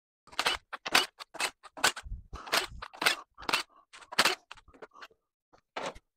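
An irregular series of sharp metallic clicks and knocks as metal parts are handled on the C20LET's camshaft and cam bearing caps, with a cordless power tool set down on the cylinder head. There is no steady motor sound.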